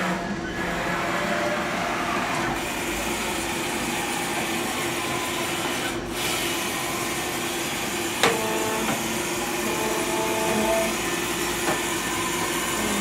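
Haas VF-4 CNC vertical mill's Y-axis brushless servo drive and ball screw moving the table in a continuous jog, a steady mechanical hum with a sharp click about eight seconds in.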